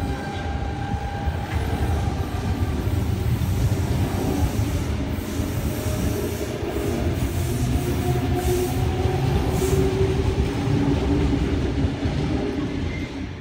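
Sydney Trains Tangara double-deck electric train pulling out of the station: a steady rumble of wheels and motors that fades near the end as the last car moves away.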